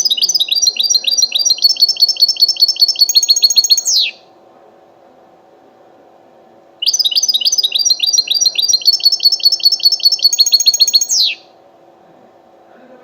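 European goldfinch singing two near-identical song phrases, each a fast run of repeated high chirping notes ending in a quick falling sweep, with a pause of a few seconds between them.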